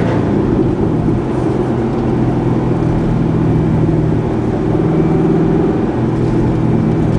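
Corvette C6 V8 running through an ARK DT-S true-dual cat-back exhaust, held at fairly steady revs, giving a steady low drone over a rough, noisy rumble.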